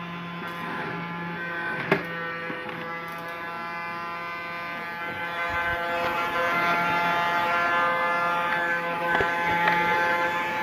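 Small battery-powered motor and fan of a cheap toy robot vacuum running with a steady whine, a little louder about halfway. It blows air out rather than sucking. A couple of light knocks from handling the plastic body.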